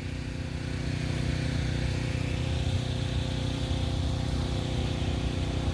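Generator engine running at a steady speed, a constant loud drone that rises a little in level over the first second or so.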